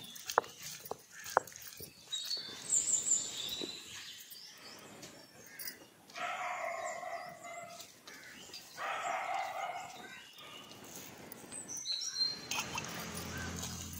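Birds chirping in short high calls, and twice a longer animal call about a second and a half long, some six and nine seconds in. A few sharp knocks come near the start.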